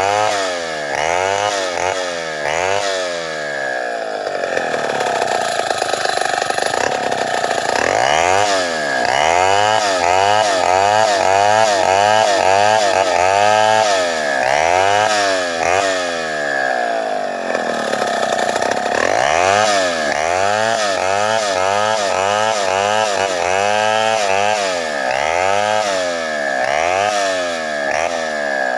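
Chainsaw running under load while ripping sengon wood lengthwise, its engine pitch rising and falling again and again.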